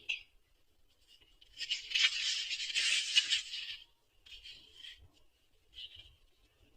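Paper rustling as a book page is turned: one long rustle, then two short, fainter ones.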